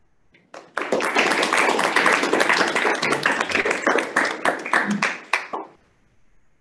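Audience applauding: dense clapping that starts just under a second in and dies away about five and a half seconds in.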